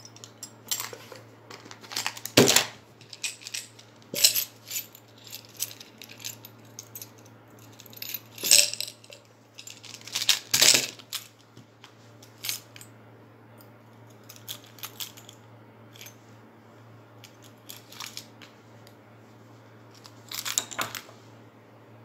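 Metal tubes and tools clinking and knocking on a wooden workbench as they are picked up, slid apart and set down: a scattered series of sharp clicks, the loudest about two seconds in, around eight and ten seconds, and near the end. A faint low hum runs underneath.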